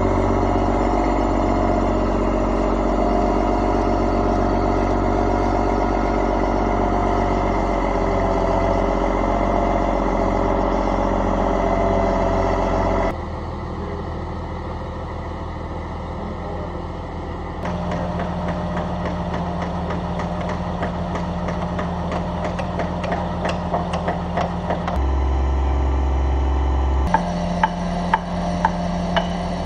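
Heavy equipment engines running steadily while a crane lifts the timber frame, the sound changing abruptly several times between clips. Near the end, a series of sharp knocks, about one or two a second, from a mallet striking timber as a beam is fitted.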